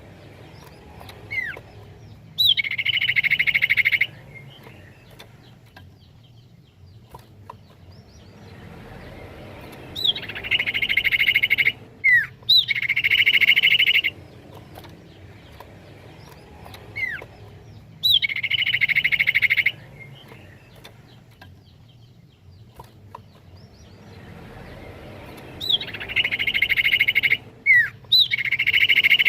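Common iora (cipoh) calling: a quick, sharply falling whistle followed by a loud buzzy trill of about a second and a half, repeated about five times at intervals of several seconds.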